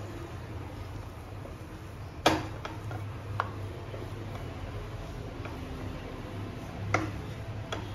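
Steel potato masher pressing through a soft beetroot and potato mash and knocking against a nonstick frying pan: a few sharp clicks over a low steady hum, the loudest a little over two seconds in and another near seven seconds.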